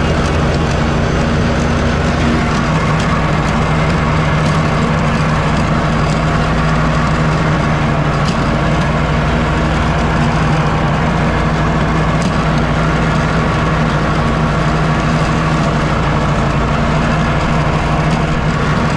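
Walker riding mower's engine running steadily under load while cutting grass. Its low hum shifts about two seconds in.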